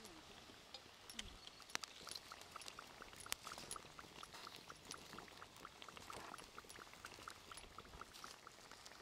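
Faint crackling of urad-dal vadas frying in a pan of hot oil, heard as scattered small pops. A faint, regular chirp repeats about three times a second from a few seconds in.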